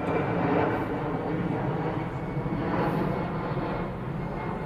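Steady drone of distant engine noise, even throughout, with no sharp sounds standing out.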